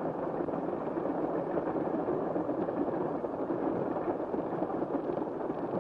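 Propeller airplane engines running with a steady drone, heard on an early-1930s film soundtrack.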